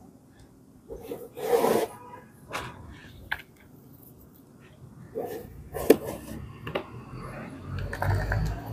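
Hands scooping and pressing loose potting soil into a hard plastic pot around a young plant's stem: a run of rustling, scraping strokes, the loudest about a second and a half in, with a low rumble near the end.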